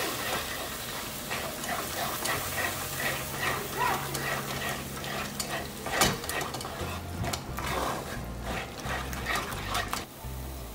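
A wooden spatula stirring and scraping yogurt through a thick onion-masala gravy in a nonstick pan, in a run of short, uneven strokes.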